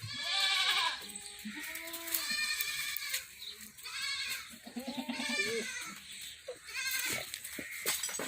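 Several goats bleating, one call after another with some overlapping, the loudest near the start.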